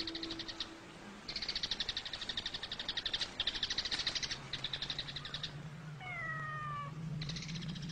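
Insects chirping in rapid, evenly pulsed high trills, in bursts of a second or two. About six seconds in comes a cat's single falling meow.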